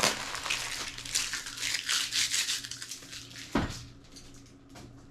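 Packaging being handled and unwrapped: plastic wrap crinkling and rustling, then a single knock about three and a half seconds in, after which it goes quieter.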